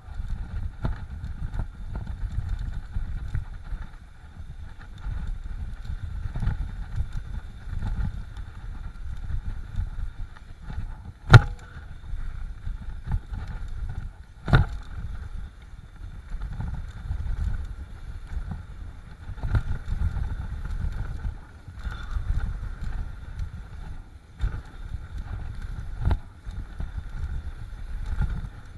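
Mountain bike riding down a rough dirt trail: a continuous rumble of tyres and frame over bumpy ground with wind on the microphone. Two sharp knocks as the bike jolts over the terrain, the loudest about eleven seconds in and another about three seconds later.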